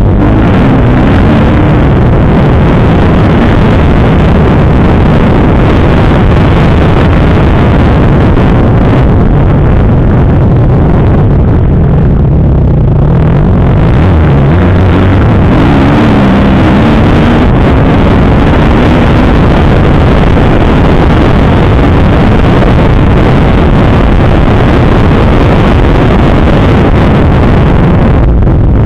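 Kawasaki KX250F dirt bike's four-stroke single-cylinder engine running hard while being ridden around a motocross track, heard from on the bike. It is loud, and its pitch rises and falls as the throttle opens and closes.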